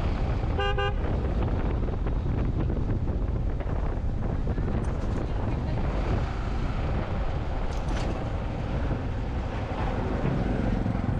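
Yamaha R15 V3 single-cylinder motorcycle cruising in fourth gear, its engine and the rushing wind making a steady roar. A vehicle horn gives one short toot about a second in.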